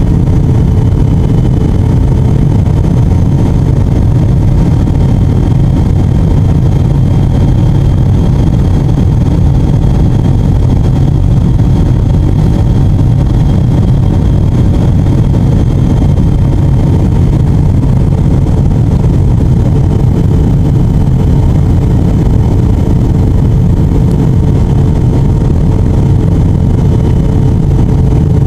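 Passenger aircraft cabin noise in flight: the steady, loud din of the engines and rushing air, deep-heavy, with a few faint constant hums on top.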